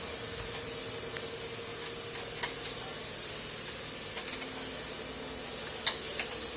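Steady hiss with a faint steady hum underneath, broken by a few sharp metal clicks from a hand tool working at the truck cab's door hinge. Two of the clicks are louder, one about two and a half seconds in and one near the end.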